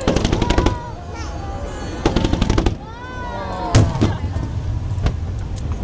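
Fireworks going off: a rapid volley of sharp bangs at the start, a second rapid volley about two seconds in, then a single heavy boom a little under four seconds in.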